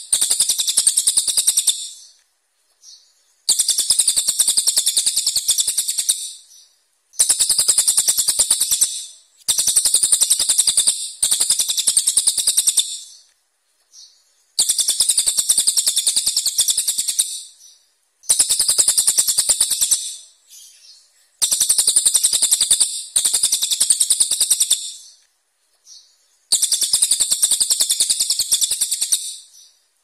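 A brown cililin songbird sings in bursts of rapid, harsh 'shot' notes (tembakan kasar). There are about ten high-pitched rattling phrases of two to three seconds each, with short pauses between them.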